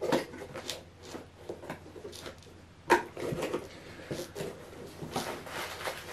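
A long cardboard shipping box being opened by hand: rustling, scraping and creaking as the taped end flaps are worked loose and pulled open, with one sharper crack about three seconds in.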